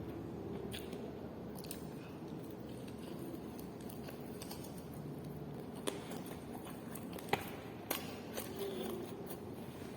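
A person chewing and eating chicken close to the microphone, with a few sharp clicks scattered through.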